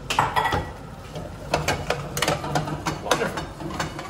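Metal spoon scraping and clicking against a frying pan as penne is stirred through a thick cream sauce. A quick cluster of knocks comes first, then repeated strokes about three a second.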